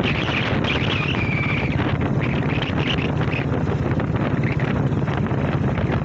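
Wind buffeting the microphone over a steady low rumble, with a few short high chirps in the first second and a half.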